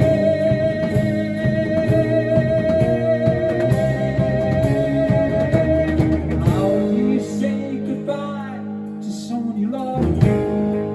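Rock band playing live: a singer holds one long sung note with vibrato for about six seconds over electric guitar and drums, then the band plays on without vocals.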